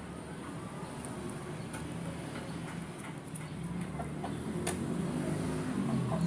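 A low engine hum that grows steadily louder, like a motor vehicle approaching, with faint, scattered short chirps and clicks above it.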